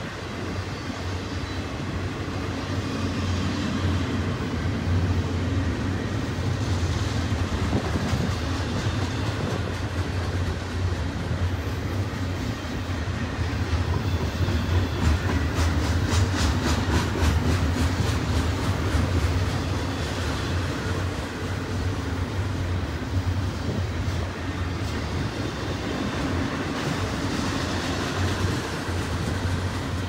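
Double-stack intermodal well cars rolling past on the main line: a steady low rumble of steel wheels on rail with clickety-clack, and a few seconds of rapid, even clicking about halfway through.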